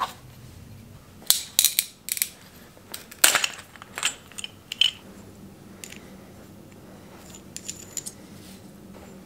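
Metal bicycle tool and fork parts clicking and clinking as they are handled: a tubular crown race setting tool is slid over a fork's steerer tube and a small adapter is fitted into its end. A cluster of sharp clicks runs through the first half, with a few lighter ringing ticks near the end.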